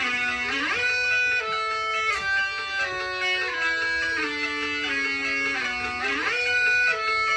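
Rock music playing from a vinyl record: a guitar-led melody of long held notes that slide from one pitch to the next.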